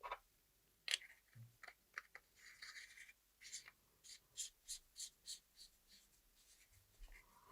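Faint small clicks and a brief scrape of a flashlight being handled, with a run of light ticks at about three a second near the middle.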